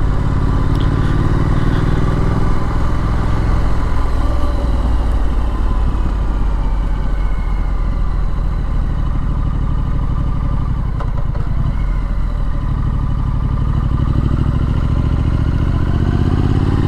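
Triumph Street Scrambler's 900cc parallel-twin engine running at low, fairly steady revs as the motorcycle is ridden gently along.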